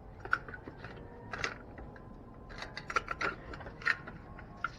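Scattered clicks and short scraping rustles, about half a dozen, irregularly spaced: handling noise.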